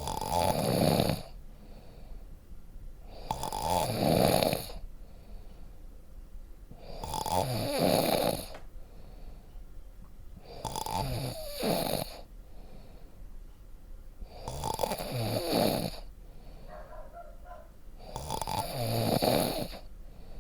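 Snoring: six snores at an even pace, about one every four seconds, each lasting a little over a second.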